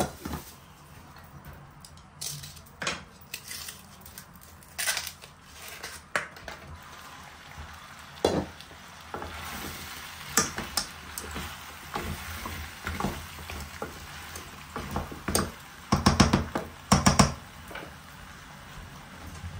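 Food in a stainless steel pot on an induction hob, sizzling while it is stirred with a wooden spoon. A glass lid clinks at the start, the sizzle swells about halfway through as something is tipped in from a cup, and near the end there is a quick run of loud knocks of the spoon against the pot.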